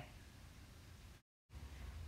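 Near silence: faint steady hiss and low hum of the recording, dropping to total silence for a moment a little over a second in.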